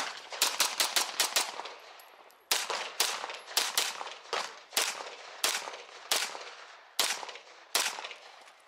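Rapid pistol fire from a compensated race pistol, about fifteen shots in all. A fast string of about six shots comes in the first second and a half, then a short pause, then pairs and single shots roughly half a second to a second apart, each with a brief ringing echo.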